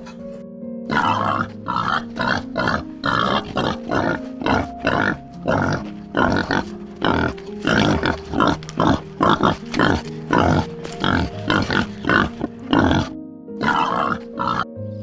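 An animal grunting in a quick series of short, rough calls, about two a second, with a brief pause near the end, over background music with steady held notes.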